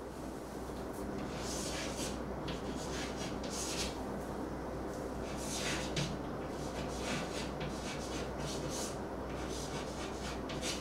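Soft scratching and rubbing strokes at irregular intervals, over a low steady hum.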